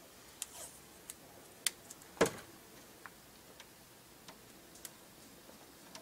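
Hands handling a plastic cooling fan and its wire in a camper fridge vent: scattered light clicks and taps, the sharpest about two seconds in, over a faint steady hiss.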